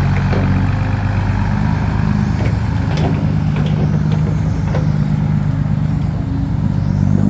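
Excavator's diesel engine running steadily under load, with a few faint clicks and knocks from the machine.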